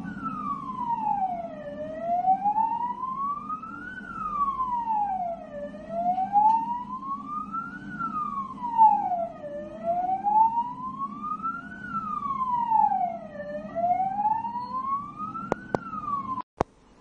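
Siren wailing in a slow sweep, its pitch falling and rising about once every four seconds, over a steady low rumble. It stops suddenly with a few sharp clicks near the end.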